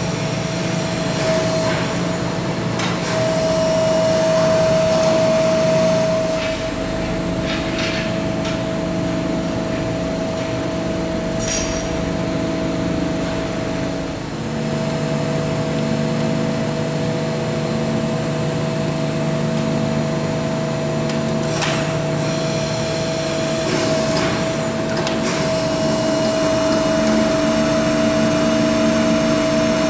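Edwards Pearson 500-ton CNC hydraulic press brake running, with a steady hum and whine whose lower notes change about halfway through and again near the end. A few sharp metallic clanks from the machine and sheet metal being handled at the bed.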